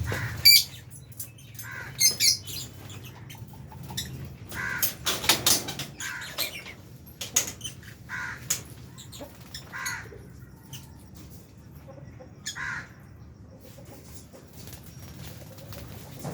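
A flock of lovebirds in an aviary giving short, sharp chirps and shrieks, scattered and irregular, with brief rustles of wings between the calls.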